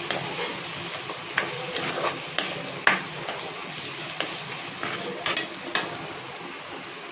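A spoon stirring and scraping around a pan of frying onions, giving irregular clinks against the pan over a steady sizzle.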